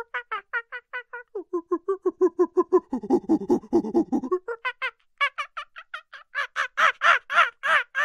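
Chimpanzee calling in a fast run of hoots, about seven a second, that climb in pitch and loudness into shrill screaming calls over the last few seconds.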